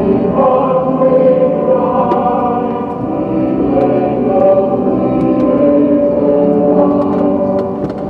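Background music of slow, sustained choir-like chords, changing about every few seconds.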